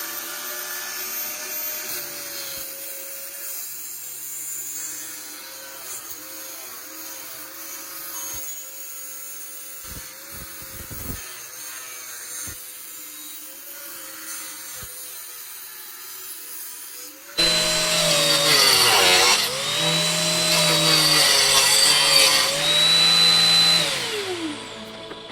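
Angle grinder running freely with a steady motor whine. About 17 seconds in, the disc bites into the workpiece and it turns much louder and harsher, the motor pitch sagging under load a couple of times.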